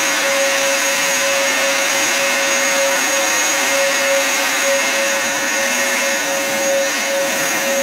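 Upright vacuum cleaner running steadily: a constant whine over the rush of air.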